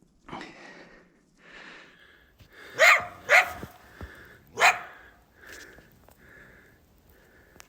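Coyote held by the front foot in a foothold trap, barking three sharp times: two close together about three seconds in and one more a second later. Quieter breathing sounds come between the barks.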